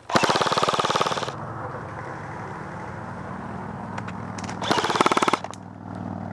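Airsoft electric rifle firing two full-auto bursts, a longer one of about a second at the start and a shorter one near the end, each a fast rattle of shots. A steady low hum runs underneath between the bursts.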